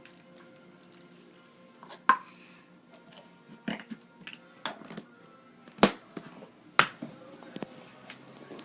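Slime being squeezed and worked by hand, giving a series of sharp clicking pops about once a second, from trapped air bursting out of the slime.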